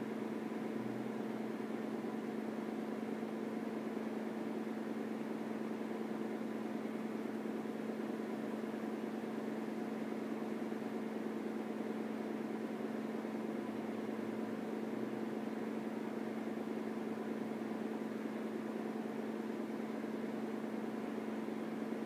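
Steady machine hum with a strong low tone and fainter overtones, unchanging throughout.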